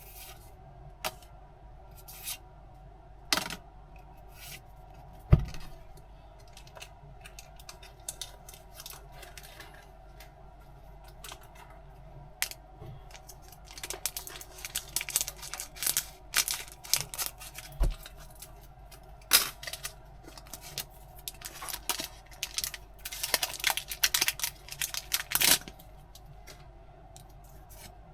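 Unboxing handling noise: scattered clicks and taps of the tin and its contents, then about twelve seconds of crinkling, rustling and tearing of packaging such as booster-pack wrappers, with a couple of low thumps.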